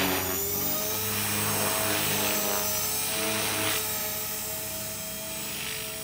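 Radio-control model helicopter running in flight: a steady high engine and rotor whine that swells and eases every couple of seconds.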